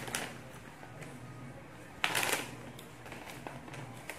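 Crinkling of a plastic-foil snack bag of pea crackers being handled and tipped, in short crackly bursts, the loudest about two seconds in.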